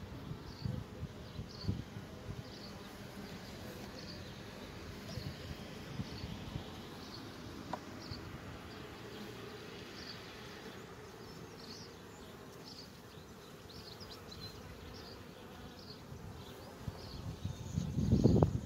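Honeybees humming steadily in an open hive. This is a weak colony, and the hive is not loud where a normal one would be louder. Near the end, louder knocking and scraping as the wooden frames in the hive box are handled.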